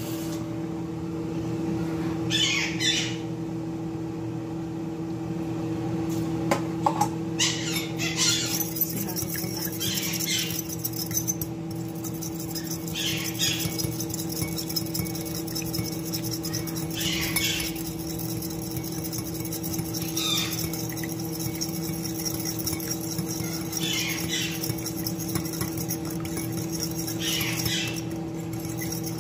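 Fork beating eggs in a ceramic bowl: a fast scraping and clicking against the bowl that starts about eight seconds in and runs on, with stronger strokes every few seconds. A steady hum sits underneath.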